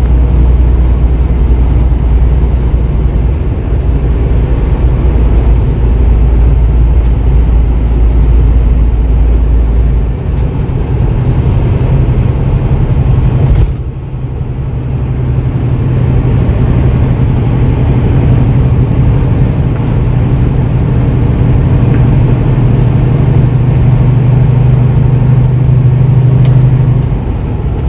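Semi-truck driving on the highway, heard from inside the cab: a steady deep engine drone with tyre and road noise. About ten seconds in, the drone shifts up to a higher pitch and holds there.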